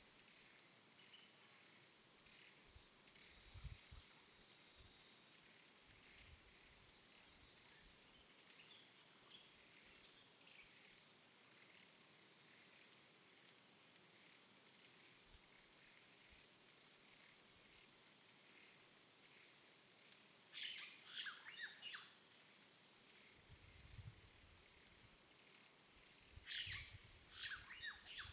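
Quiet countryside ambience: a steady, high insect drone, with two short bouts of bird chirping near the end and a few soft low thumps.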